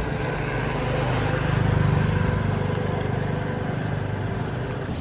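A motor vehicle's engine runs steadily with a low hum, swelling a little about two seconds in.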